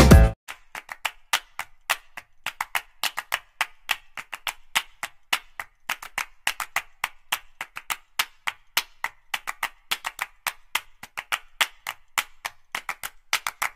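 A sparse, fairly regular rhythm of sharp percussive clicks, like claps or wood-block hits, about five a second with no melody under them: a percussion-only stretch of the background music.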